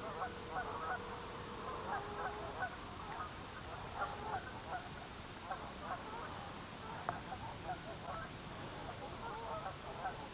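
A flock of waterfowl calling on the water: many short honks and quacks, overlapping and scattered throughout, over a steady background hiss.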